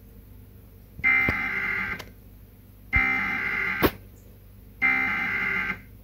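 Emergency Alert System SAME header data bursts: three one-second bursts of warbling digital tones about a second apart, played through a television speaker. They open a Required Weekly Test. There is a sharp click near the end of the second burst.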